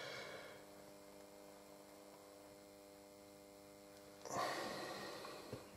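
Low steady electrical mains hum, close to silence. About four seconds in, a brief noisy rustle rises and fades over about a second.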